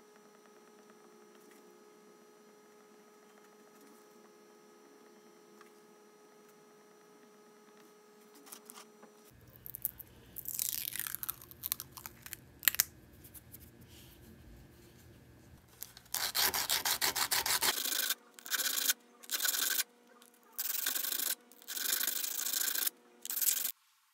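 A clear polycarbonate crankbait lip worked by hand: the crinkle of protective film peeling off the plastic, then about six short, loud, rough rubbing strokes as its edges are abraded. A faint steady hum for the first several seconds.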